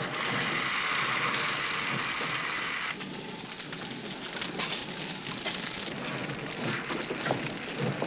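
Water spraying hard from a fire hose: a dense, steady hiss that cuts off suddenly about three seconds in. A rougher crackling and splashing noise with scattered clicks follows.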